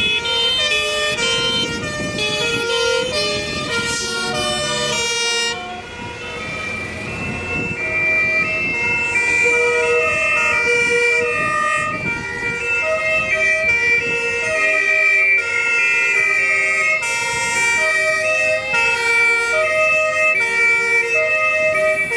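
Several two-tone fire-engine sirens sounding at once, their alternating high-low notes overlapping at different pitches and speeds, over the running engines of passing vintage fire trucks. About six seconds in, one set of horns drops out and others take over.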